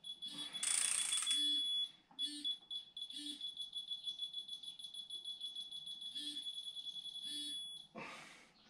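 A high-pitched electronic beeping tone, held for several seconds with a rapid flutter. A short burst of hiss comes about a second in, and a brief rustle near the end.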